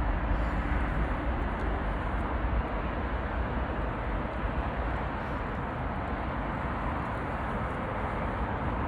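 Steady, even rumble of a distant Boeing 777's jet engines as it turns onto the runway, mixed with wind on the microphone.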